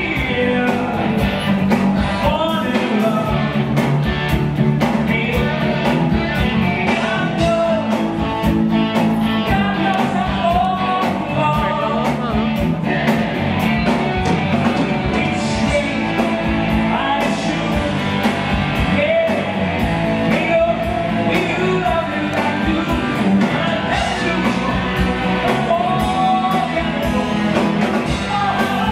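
Live rock band playing: drum kit, bass guitar and keyboards, with a male lead singer singing over them.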